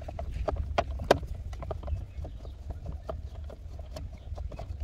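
Irregular clicks and knocks of a screwdriver working against the plastic steering column shroud of a Jeep Cherokee XJ while its screws are backed out, over a steady low rumble.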